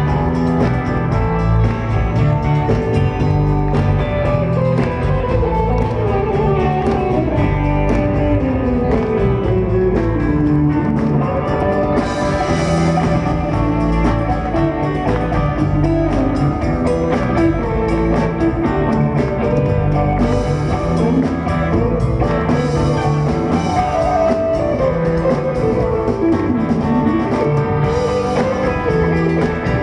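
Live band playing amplified guitars and a drum kit. A melody line slides down in pitch twice.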